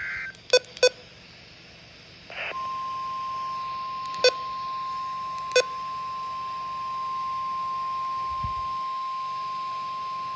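NOAA Weather Radio warning alarm tone for the weekly test: a steady single-pitched tone of about 1 kHz (the 1050 Hz weather radio alert tone) comes in about two and a half seconds in, after a brief burst of static, and holds on. Very short, loud beeps sound twice near the start and twice more over the tone.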